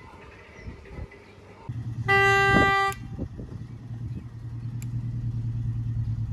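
A narrow-gauge locomotive's horn sounding once for just under a second, a single toot. Under it and after it, a locomotive engine runs with a steady low drone.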